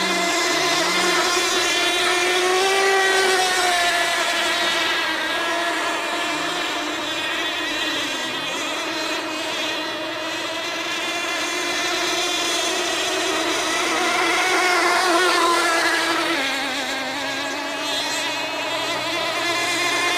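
Racing model tunnel boats running flat out, their small two-stroke engines making a high, steady whine whose pitch wavers as the boats pass and turn.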